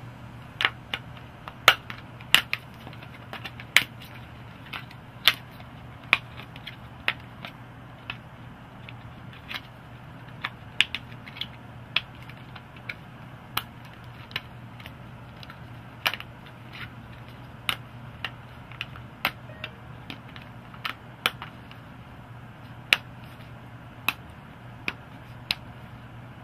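Plastic clicks and snaps of a JT Spectra paintball goggle lens being flexed out of and back into the frame's tabs and slots, irregular sharp clicks roughly one or two a second, over a steady low hum.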